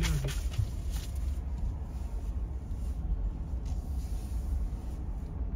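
Steady low rumble of a vehicle heard from inside its cabin while it creeps along in a highway traffic jam.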